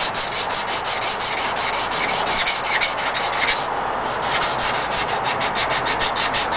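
Fine-grit wet sandpaper rubbed back and forth by hand over a painted steel seat standard, in quick short strokes about five a second, with a brief pause a little past halfway.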